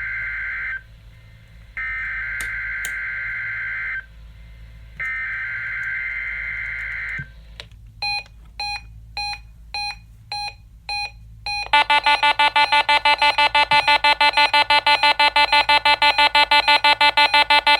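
Three NOAA Weather Radio SAME header bursts, harsh screeching digital data tones about two seconds long with a second's gap between them, followed by about six short electronic beeps and then a loud, fast, continuous electronic alarm beeping.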